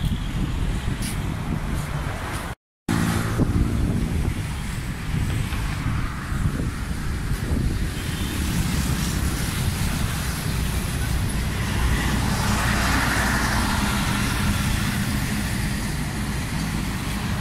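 Street traffic: cars and motorbikes driving past with a steady low rumble. The sound cuts out completely for a moment a little under three seconds in, then picks up again.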